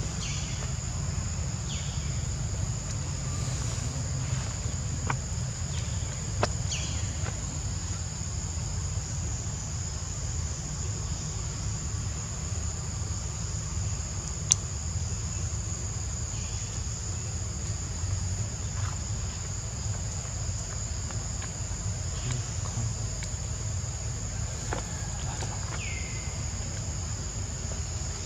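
A steady, high-pitched chorus of insects such as crickets or cicadas over a continuous low rumble, with a few short falling chirps and a single sharp click about halfway through.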